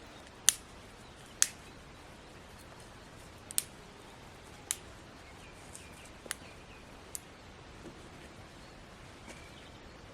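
Dry sticks and twigs cracking, a sharp snap every second or so at an irregular pace, over a faint outdoor hiss.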